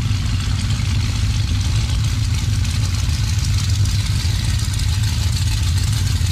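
Hot rod and custom car engines running at low speed as the cars cruise slowly past, a deep steady engine throb under a constant hiss.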